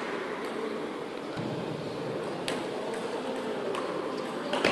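A table tennis ball clicking a few separate times in a large hall between rallies, the last click near the end the sharpest, over a steady hall background.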